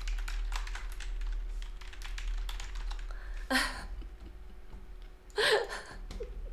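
Computer keyboard typing, with a woman who has a cold coughing twice, once about three and a half seconds in and again two seconds later; the coughs are the loudest sounds.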